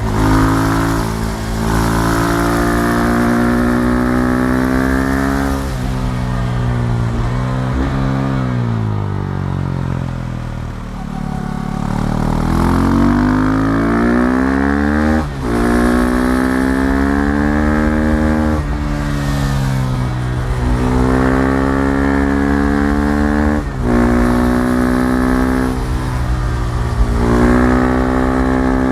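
KTM Duke 390 single-cylinder engine under way, pulling hard with its pitch climbing and then dropping sharply at each upshift, several times over. Near the middle the revs fall away as it slows, then climb again as it accelerates.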